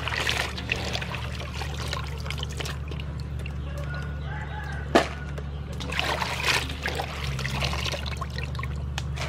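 Razor clams being washed by hand in an aluminium basin of water: water sloshing, splashing and trickling as the clams are scrubbed and lifted, with one sharp knock about five seconds in, over a steady low hum.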